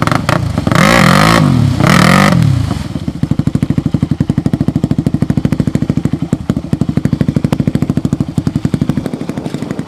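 Dirt bike engine, just restarted after stalling in a mud hole, revved twice in the first couple of seconds, then running at a steady, fast putter while the bike sits bogged in the mud.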